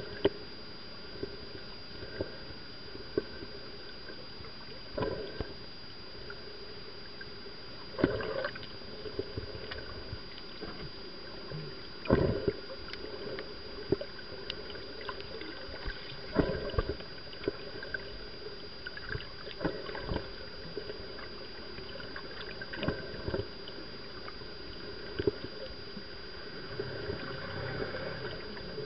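Underwater ambience: a steady muffled wash of water noise, broken by irregular knocks and thumps every few seconds, with a faint constant high whine.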